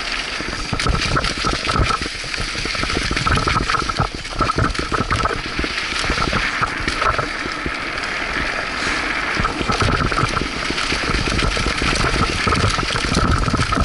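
Mountain bike descending a dirt trail, heard from a helmet camera: wind rushing over the microphone, with the bike rattling and knocking over the bumps. An on-and-off high buzz comes and goes.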